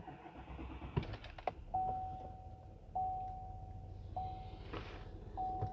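The truck's warning chime dinging about every second and a quarter over the low rumble of the 6.6-liter Duramax V8 diesel starting and idling, with a few clicks about a second in.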